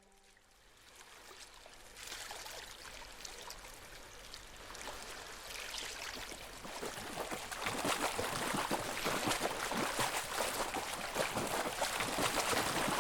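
Rushing, trickling water like a stream, with a fine crackle in it, fading in after a moment of silence and growing steadily louder.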